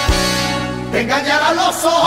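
Recorded Spanish festive song of the sevillanas rocieras kind: a held instrumental passage, then singing voices come in about a second in.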